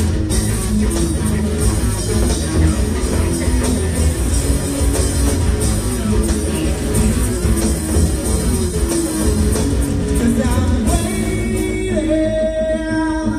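Live rock band playing: electric guitars and drums, with singing. About eleven seconds in, the drums stop, leaving guitar and a long held note.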